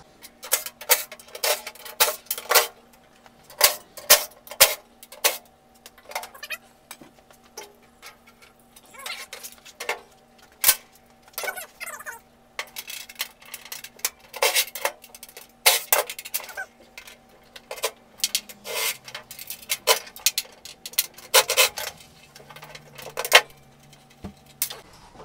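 Bolts being run out of a Swisher 44-inch rough cut mower's steel deck plates with a cordless impact driver: short bursts from the driver amid an irregular string of sharp metallic clicks and clinks as bolts and plates are handled, over a faint steady hum.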